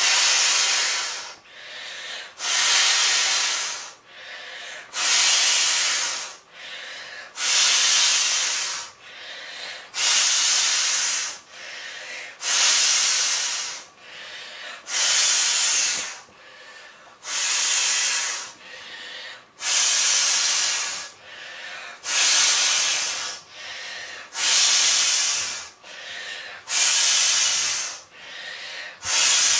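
A large inflatable beach ball being blown up by mouth: a long rush of breath into the valve about every two and a half seconds, with a shorter, quieter in-breath between each.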